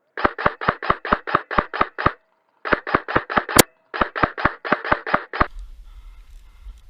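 Airsoft electric gun firing rapid semi-automatic shots, about four a second, in three strings of roughly nine, five and seven shots with short pauses between; each shot is a brief motor-driven crack. One sharper single crack comes a little after halfway.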